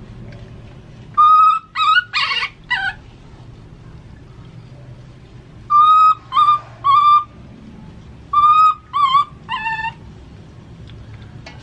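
A baby monkey giving short, high, thin cries in three bursts of three or four calls. The last cry of each burst drops in pitch. These are the distress calls of a frightened infant monkey being bathed.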